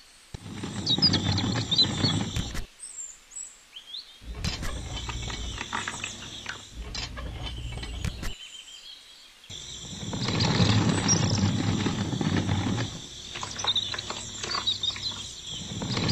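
Scraping and handling noise as wet concrete is tipped out of a miniature mixer's drum into a toy wheelbarrow and poured, in short stretches that start and stop abruptly, with faint bird chirps.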